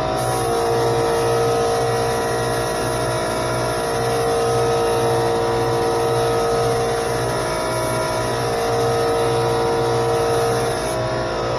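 Air hissing steadily through a SprayIT R500 LVLP gravity-feed spray gun held open for a long pass, cutting off about eleven seconds in, over the steady running drone of a small air compressor.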